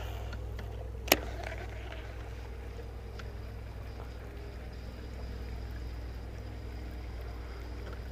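Bass boat's bow-mounted electric trolling motor running with a steady low rumble and a faint hum, plus one sharp click about a second in.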